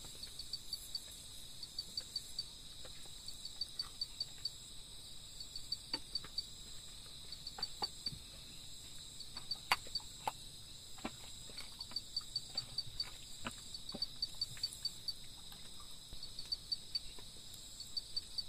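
Crickets and other insects calling without pause: a steady high trill broken into quick groups of chirps about once a second, over a second thin high buzz. Scattered sharp ticks and clicks come through, most of them in the middle of the stretch.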